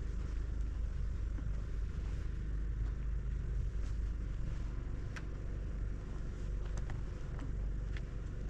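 Wind buffeting the microphone in a steady low rumble, with a few faint clicks in the second half.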